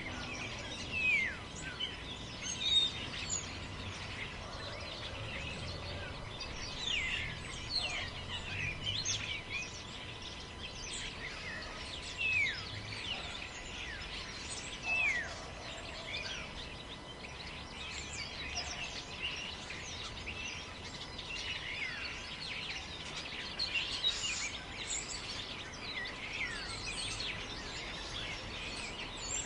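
Forest ambience: many small birds calling and chirping throughout, mostly short falling whistles, over a steady background hiss of wind.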